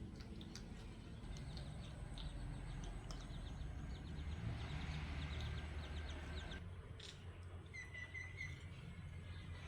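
Small birds chirping and twittering, with a quick run of short, even chirps about eight seconds in, over a steady low rumble.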